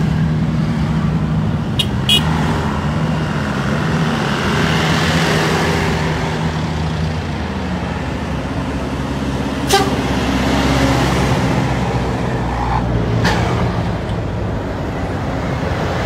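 Buses and motorcycles driving past close by: a steady low engine hum, with engine and tyre noise swelling as vehicles go by, once about a third of the way in and again after the middle. A few short sharp clicks are mixed in.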